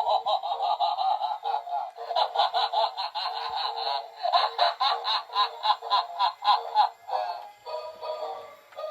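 Battery-powered animated laughing clown prop playing its recorded laughter and voice track through a small built-in speaker. It is a thin sound with no bass: a rapid run of "ha-ha" pulses, about four or five a second, breaking into shorter phrases near the end.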